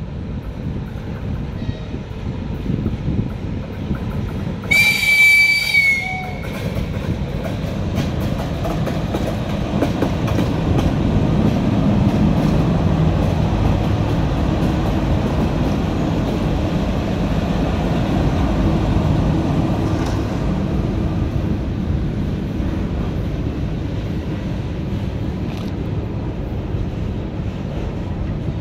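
VL11M electric freight locomotive hauling a container train: one short high-pitched horn blast about five seconds in, then the steady rumble and clickety-clack of the locomotive and container wagons rolling past, loudest about ten to twenty seconds in.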